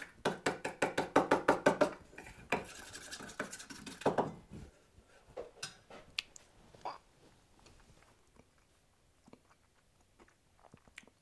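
Fork whisking an olive-oil, mustard and honey dressing in a small metal bowl: quick, even scraping strokes against the metal, about six a second, for about four seconds. Then a few light clicks, and it falls almost silent.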